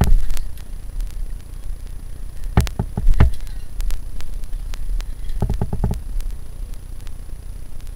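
Knocks and rattling from gear and the camera being handled while moving through a rocky cave passage, over a steady low rumble of handling noise. A cluster of sharp knocks comes about two and a half seconds in, and a quick rattle of about six knocks near six seconds.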